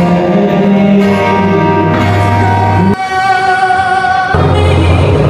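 Music: singing over guitar, broken by abrupt cuts about three seconds in and again just after four seconds; between the cuts a single sung note is held with a wavering vibrato.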